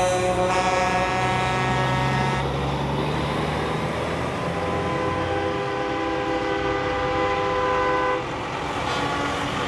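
Semi trucks' air horns blowing long, chord-like blasts over the low rumble of passing diesel trucks. One blast ends about two seconds in; another starts about four seconds in and cuts off just after eight seconds.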